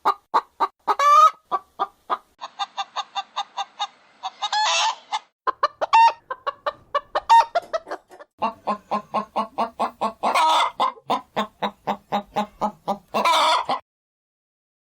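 Chickens clucking in quick runs of short calls, about five a second, broken by several loud squawks. It cuts off abruptly about a second before the end.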